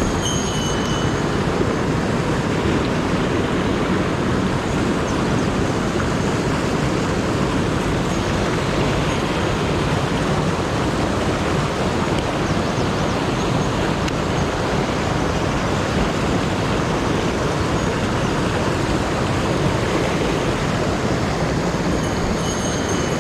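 Mountain headwater stream rushing over rocky cascades and small falls: a loud, steady rush of water.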